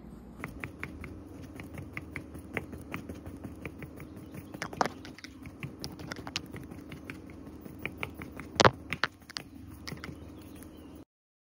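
Wooden skewer pricking holes in a baked sponge cake: a run of irregular light taps and pokes, a few a second, with a louder cluster near the end, over a faint steady hum. The sound stops abruptly shortly before the end.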